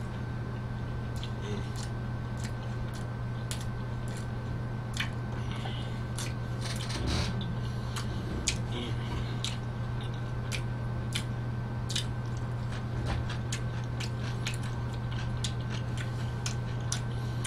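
Close-miked chewing of a large mouthful of pizza: irregular wet mouth clicks and smacks over a steady low electrical hum.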